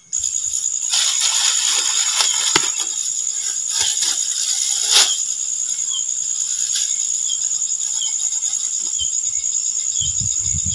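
Loud, steady, high-pitched insect buzzing. Over the first few seconds comes the crinkle of a black plastic bag being handled, with a sharp rustle about five seconds in.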